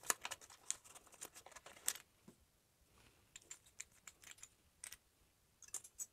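Faint, scattered small clicks and taps of a stainless steel Giesen & Forsthoff three-piece safety razor being unscrewed and a Merkur double-edge blade set onto its head, in short clusters with a quieter gap in the middle.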